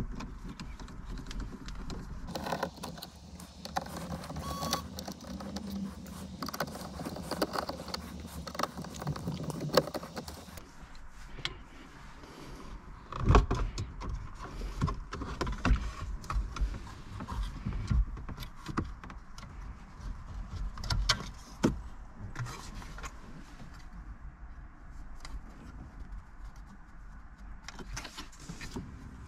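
A Seat Ibiza 6J's factory radio being freed with removal tools and pulled out of the dashboard. Small metal clicks and scraping come first, then louder knocks and rattles as the metal-cased unit slides out of its slot.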